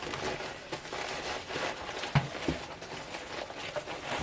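Packing wrap rustling and crinkling as a small ceramic shaker is unwrapped by hand, with a light knock about two seconds in.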